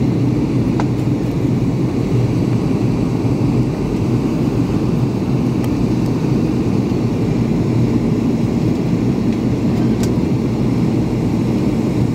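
Steady cabin noise inside a Boeing 757-200 on descent: the even drone of its Rolls-Royce RB211-535E4B engines mixed with rushing airflow, heard from a window seat. A few faint clicks are heard over it.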